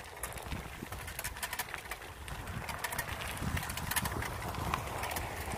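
Bicycle rolling slowly over rough asphalt and gravel, heard through a phone clipped to the bike: a steady low rumble from tyres and wind on the microphone, with many small rattling clicks from the bike and the mount.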